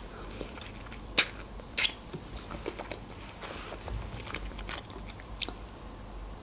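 A person biting and chewing pan-fried chicken wings, with a few sharp clicks of the bite: one about a second in, another just before two seconds, and one more near the end.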